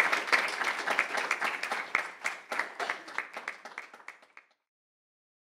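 Audience applauding, the claps thinning and fading before stopping abruptly about four and a half seconds in.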